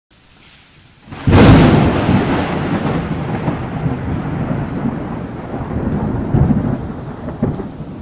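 A sudden thunderclap about a second in, followed by a long rolling rumble over a steady hiss of rain.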